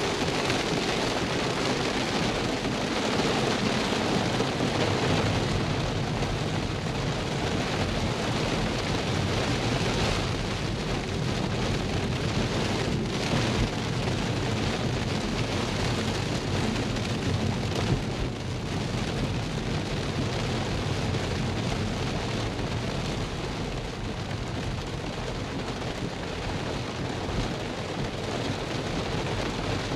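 Rain hitting the roof and windshield of a moving Tesla electric car, heard from inside the cabin as a steady dense hiss, mixed with tyre noise on the wet road.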